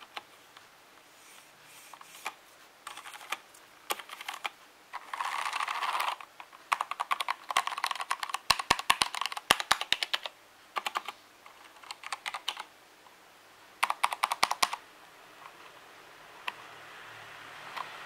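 Keystrokes on an AKKO 3084 mechanical keyboard with Cherry MX Brown Silent switches: fast runs of typing clicks with short pauses between them, the busiest run in the middle.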